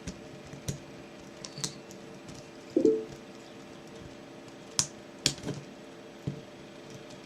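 Lock pick and tension wrench working the pin stack of a Merchant 6-pin euro cylinder, single-pin picking. Scattered small metallic clicks and scrapes come as the pins are pushed and set, with one louder clack a little under three seconds in.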